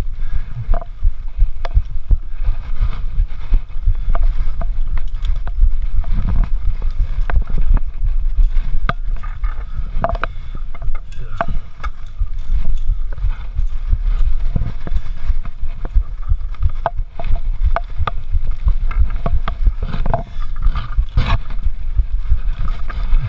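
Steady low rumble with frequent knocks, scrapes and clicks: handling noise from a body-worn action camera rubbing and bumping as the wearer climbs through suspended rubber tyres.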